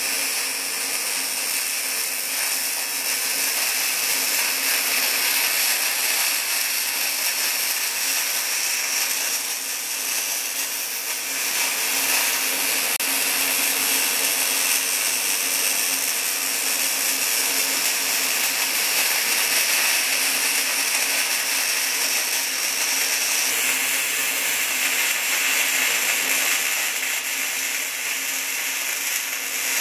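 Short-circuit MIG welding arc on 0.035-inch E70S-3 wire at about 17.6 volts, fed by a Boa308i bore welder: a steady hiss with a faint low hum underneath.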